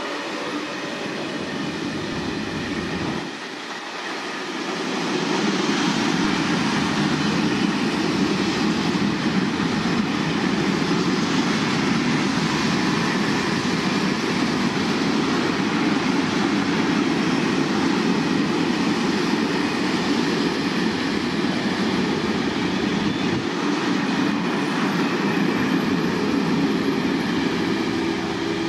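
A train passing close by, its wheels rolling on the rails as a steady, loud noise that dips briefly about three seconds in, then swells and holds.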